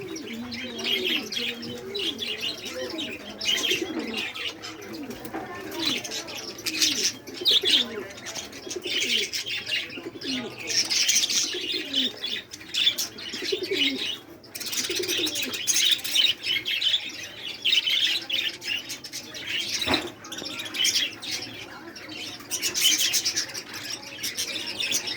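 Many birds calling at once, constantly: a dense chatter of high chirps and tweets over repeated low, gliding cooing calls.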